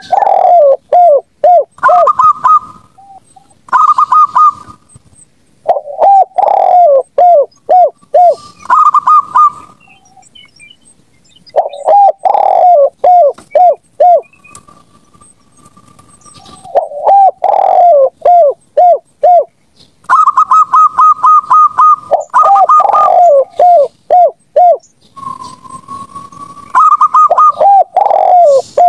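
Zebra doves and spotted doves cooing in a lure recording: loud, repeated phrases, each a quick run of short notes, some higher and some falling lower, with short pauses between phrases.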